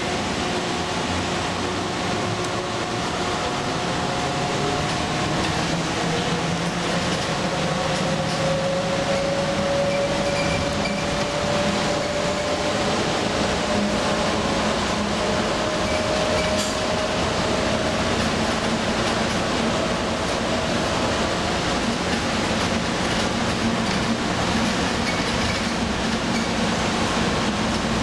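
Airport automated people-mover train running along its guideway, heard from inside the car: a steady running rumble with a faint electric whine that slowly rises in pitch partway through.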